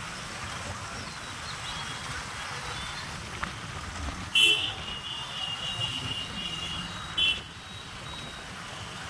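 Several motorcycles running along together at riding speed; about four seconds in a horn sounds and holds for about three seconds, loudest as it starts and again just before it stops.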